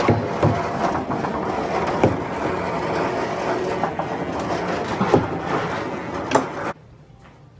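Small balls rolling round and round a large plastic funnel (gravity-well) exhibit, a steady rolling rumble with a few sharp knocks. It stops suddenly near the end.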